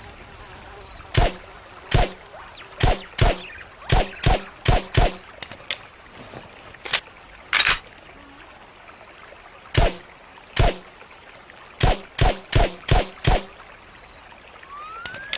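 Suppressed Smith & Wesson Model 39 9mm pistol fired in two strings of sharp reports: eight shots in about four seconds, a pause of several seconds with a few fainter clicks, then seven more shots in quick succession.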